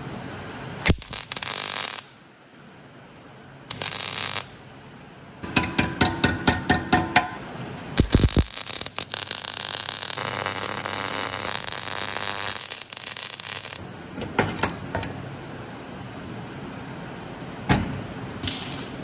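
MIG welder arc crackling as a steel brace is welded on: two short tack bursts, then a quick string of stitch pulses, then one continuous weld run of about six seconds.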